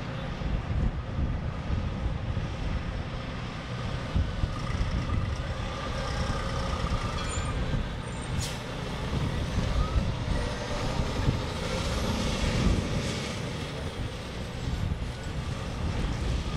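Pierce Velocity fire engine driving past, its engine running steadily, with a single sharp click about halfway through.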